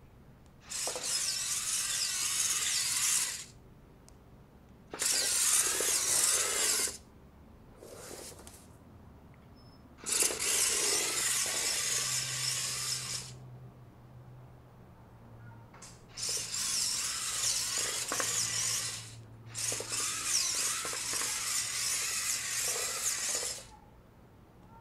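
Drive motors and gears of a small 3D-printed robot car whirring in six bursts of one to three and a half seconds, starting and stopping as the car is driven and halted from a Bluetooth phone app.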